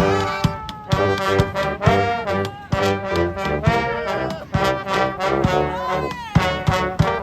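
Brass band playing an upbeat tune live: trumpets and trombones over a steady percussive beat, with a few horn notes bending in pitch.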